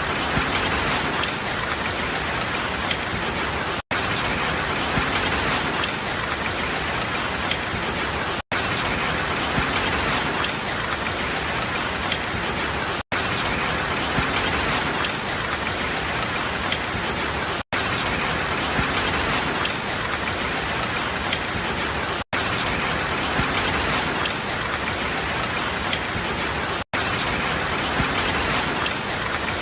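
Steady rain, an even hiss with many small drop ticks, broken by a very short silent gap about every four and a half seconds.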